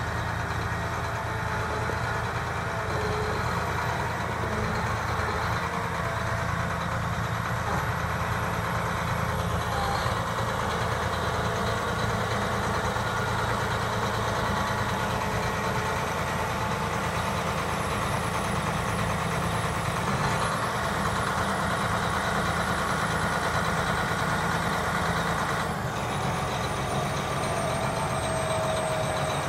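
John Deere 8310R tractor's 9.0 L diesel engine running steadily at low speed as the tractor drives slowly across gravel.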